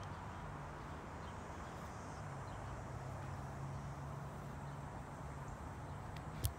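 Faint outdoor park background: a steady low hum under a soft haze of noise, with a few faint ticks and one sharp click near the end.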